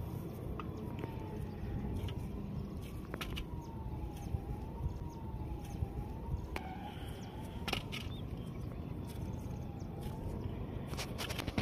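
A faint siren wailing slowly up and down, about one swing every two seconds, fading out near the end. Under it runs a steady low rumble, broken by a few short sharp clicks.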